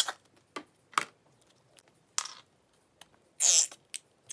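Clear glue spurting and sputtering out of a squeezed plastic bottle into a glass bowl: a few short noisy spurts of glue and air with pauses between, the longest near the end.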